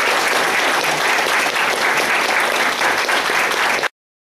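Audience applauding steadily after a speech, then cutting off suddenly near the end.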